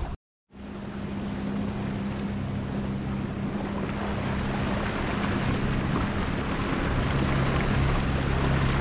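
Jet ski engine running with a steady hum under wind and the rush of water. The sound cuts out completely for a moment just after the start, and the engine's hum drops to a lower pitch near the end.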